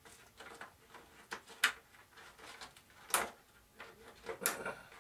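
Scattered small clicks and light knocks from hand work, with three sharper ones spread through. The sounds come from tweezers and the model airplane wing being handled while servo wires are pulled through the wing.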